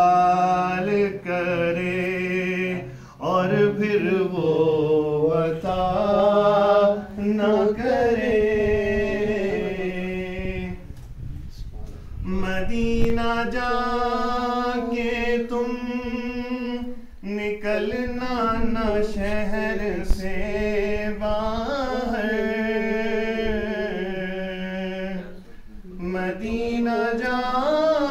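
A man reciting a naat, an Urdu devotional poem in praise of the Prophet, solo and unaccompanied. He sings it in long, drawn-out melodic phrases with brief pauses for breath between them.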